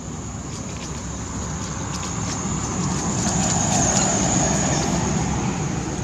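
A passing motor vehicle: a steady low rumble that swells to its loudest about four seconds in, then fades.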